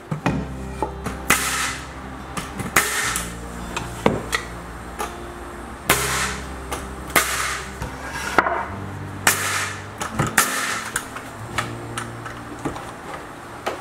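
Nails being driven into 2x4 wall framing: repeated sharp impacts at uneven spacing, over background music.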